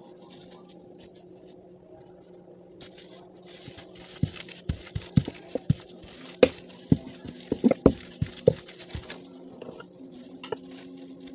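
Wooden rolling pin working bread dough on a counter, with a run of about a dozen sharp knocks and taps in the middle where the pin strikes and rolls on the board.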